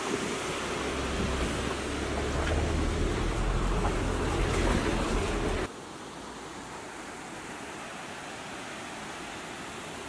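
Steady rush of a waterfall with wind buffeting the microphone as a deep rumble. A little over halfway through it cuts off abruptly to a quieter, steady rush of water without the wind.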